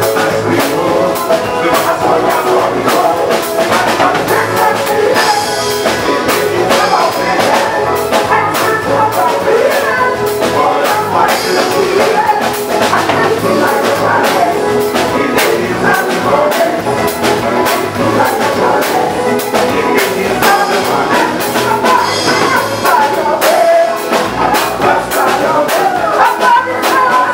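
Live soca band playing, a drum kit keeping a steady driving beat under the melody, with some singing.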